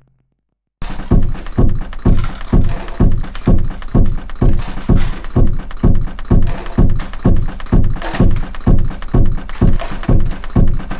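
A steady, heavy thumping beat, a little over two thumps a second, starting about a second in after a moment of silence: the pounding pulse of a dance piece's soundtrack.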